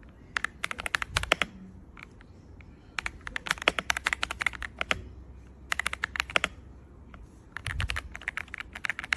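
Typing on an AULA F87 mechanical keyboard: rapid runs of key clicks, in about four bursts separated by short pauses.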